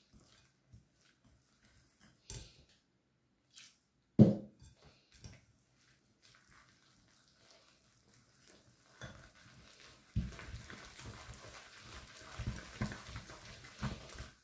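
Wire balloon whisk beating a thick pancake batter of flour, egg yolks, melted butter and milk in a glass bowl. A few scattered knocks come first, one loud knock about four seconds in, then from about ten seconds on steady whisking, with the wires scraping and tapping repeatedly against the bowl.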